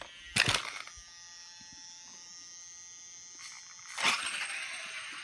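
Electric RC truck with a 1/8-scale brushless motor running on 2S, its cooling fan giving a steady high-pitched whine. There is a short burst of noise about half a second in and a longer, louder rush about four seconds in, as the truck is driven.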